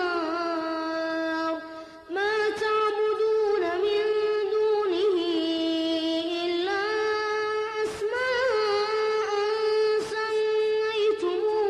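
A boy's high voice reciting the Quran in a slow, melodic, drawn-out style, holding long notes with ornamented turns of pitch. There is a short break for breath about two seconds in.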